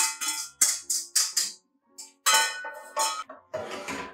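Background music with a quick, regular percussion beat, about four strokes a second, over steady instrumental tones. A short rush of noise near the end.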